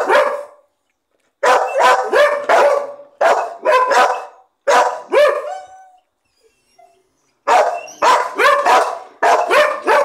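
Dogs barking and yipping in quick runs, with a short lull about two thirds of the way through, begging to be fed.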